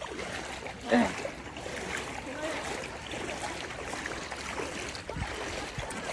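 Feet wading through shin-deep floodwater, with uneven splashing and sloshing, and a brief shout about a second in.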